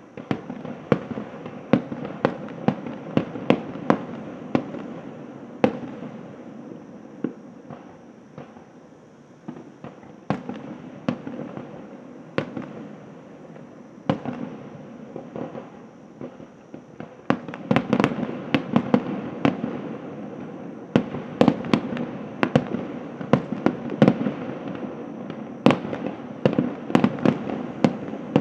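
Aerial fireworks shells bursting: a steady run of sharp bangs, often several a second, over a continuous low rumble. The bangs thin out around the middle and come thicker and louder in the second half.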